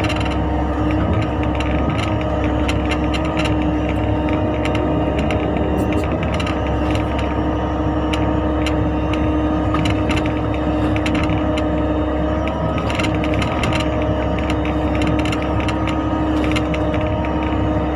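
Mini excavator's diesel engine running steadily, with scattered clicks and knocks from the working machine.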